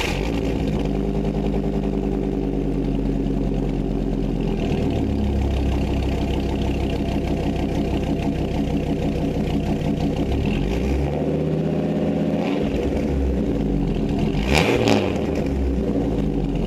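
Dodge Magnum 8.0-litre V10 idling steadily with an idle that sounds much like a six-cylinder Cummins diesel, then revved up and back down a few times in the last few seconds.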